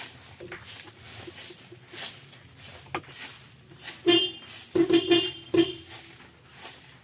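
Several sharp clicks, then three short horn toots about four to six seconds in, from a Hino RK/KW truck horn fitted to a Daihatsu Gran Max pickup.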